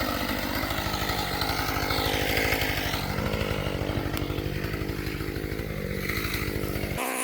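Husqvarna T540XP top-handle chainsaw's two-stroke engine running. Its low engine sound cuts off abruptly near the end.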